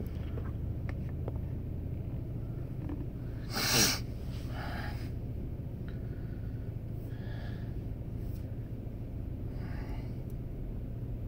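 Steady low vehicle-engine hum at idle, with one short, loud burst of breathy noise about four seconds in and a few fainter puffs of noise later.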